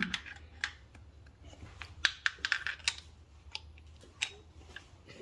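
Irregular light clicks and clinks of a metal spark plug socket being handled and worked out of the plug hole, over a faint steady low hum.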